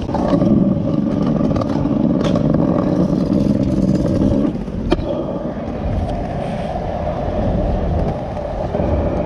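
Stunt scooter wheels rolling and rumbling over concrete, easing off about four and a half seconds in, with two sharp clacks of the deck or pegs hitting the ground about two and five seconds in.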